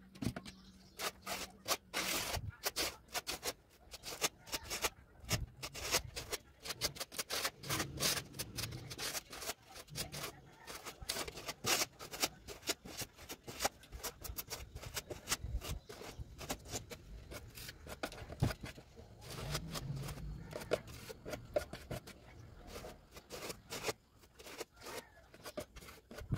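Spatula spreading acrylic putty over an EPS foam board for a second coat: a run of irregular scraping strokes with clicks and taps.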